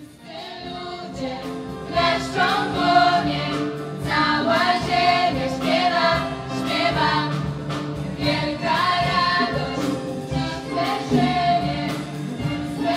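Choir singing a Christian worship song over instrumental backing, starting up again after a brief gap at the start.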